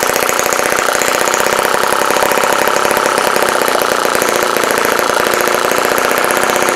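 Miniature water-cooled, spark-ignition four-stroke gasoline model engine running steadily with a rapid, even firing beat.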